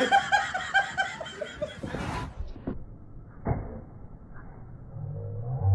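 High-pitched laughter, a quick run of about five 'ha' notes a second, stopping about two seconds in; then a few soft knocks and a low hum.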